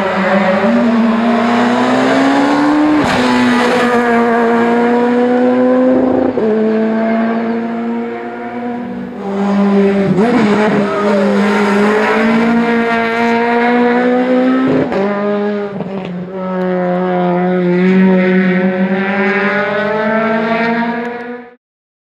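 Rally car engines running flat out at high revs, among them a Peugeot 208 R2. The engine note is held high and dips briefly about six times at gear changes and throttle lifts, then cuts off suddenly near the end.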